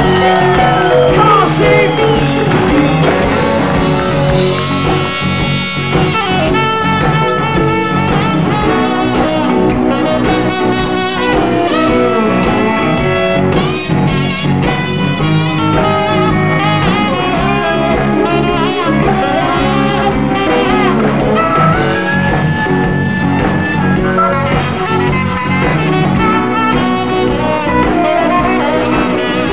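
A live blues-rock band playing an instrumental break with no singing: a lead line of long, bending notes solos over the full band.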